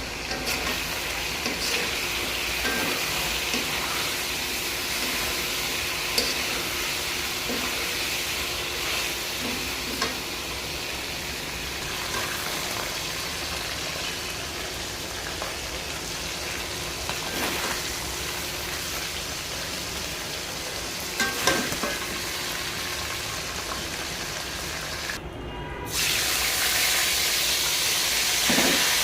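Masala chicken curry frying with a steady sizzle, with scattered clicks of a spoon stirring against the pan. Near the end the sound cuts out briefly, then comes back louder.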